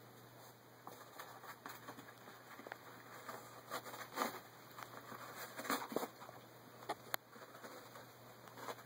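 Siamese cat clawing, biting and kicking at a toilet paper roll: irregular rustling and scratching of the paper, with a few sharp clicks.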